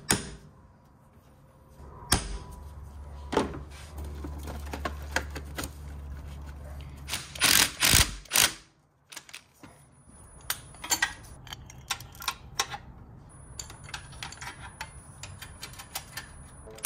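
A Milwaukee M18 cordless tool runs steadily for several seconds, driving a socket on an extension to tighten the clamp nut of a battery terminal, and ends in a few loud sharp hits. Light clicks and taps of tools and terminal handling follow.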